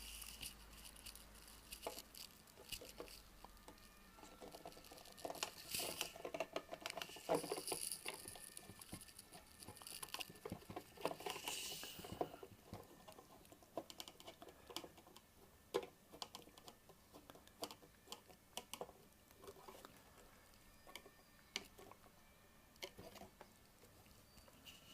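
Faint clicks, scrapes and small rattles of a screwdriver turning Phillips screws and of parts being handled while a holder is screwed onto a hot air rework station. The clicks are busiest in the first half and thin out after that.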